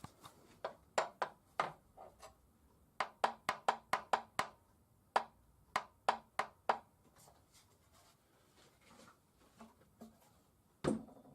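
Series of sharp knocks and taps in irregular runs, hard objects striking one another, with one heavier thump near the end.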